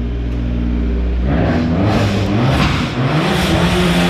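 2016 Fiat 500 Abarth's turbocharged 1.4-litre four-cylinder idling, then revved hard about a second in. Its pitch climbs and drops several times under a loud rising hiss of noise as the front tires spin in a burnout with stability control switched off.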